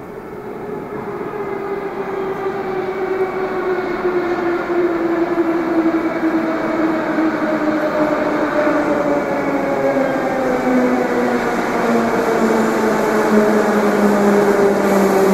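Moscow metro train pulling into the station. Its motor whine slides slowly down in pitch as it slows, over a rumble that grows steadily louder as it approaches.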